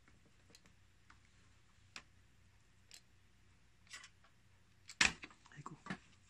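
Light ticks about once a second, then a burst of small knocks and clatter near the end as hands and tools handle the inverter's circuit board.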